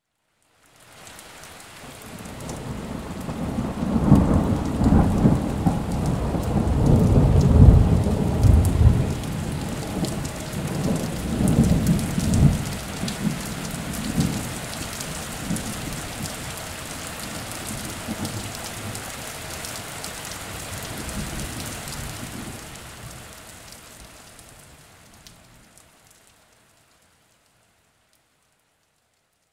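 Thunderstorm: steady rain hiss with several heavy rolls of low thunder in the first half. It fades in over the first few seconds and dies away a few seconds before the end.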